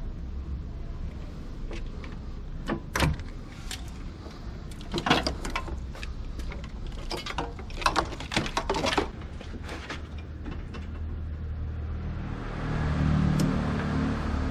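Sharp metallic clicks and knocks of hand work on a car over a steady low hum, with a louder, fuller mechanical sound swelling near the end.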